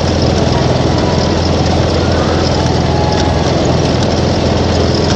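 Steady, loud motor drone with a low hum underneath, running without a break.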